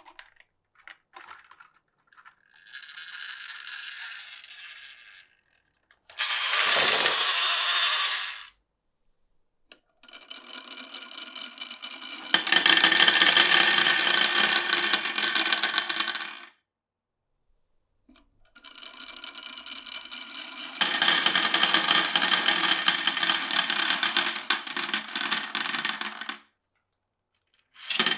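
Glass marbles rolling and clattering down a marble run. A few light clicks lead into a softer roll, then a short loud rush about six seconds in. Two long rattling runs follow, each getting louder partway through and each stopping abruptly.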